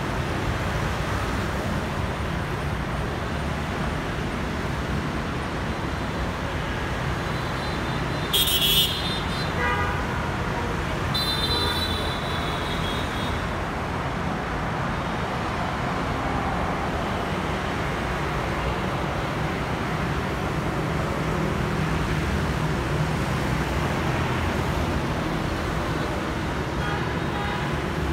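Steady hum of motorbike and car traffic on a wide multi-lane city road. A brief horn toot sounds about eight seconds in, and a longer horn beep runs from about eleven to thirteen seconds.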